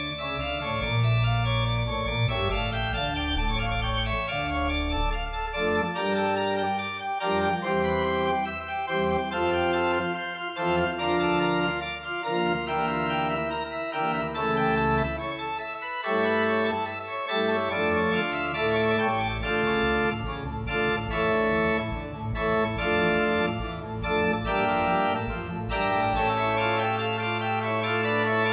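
Organ music laid over the pictures: slow, sustained chords that change every second or two over held bass notes.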